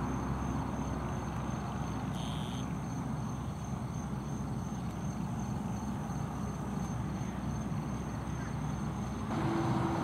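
Steady low rumble of a distant engine under a thin, steady high insect drone, with a brief high sound about two seconds in.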